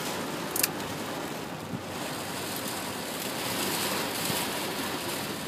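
Storm-surge surf washing in at the shore, with wind buffeting the microphone. A brief sharp click about half a second in.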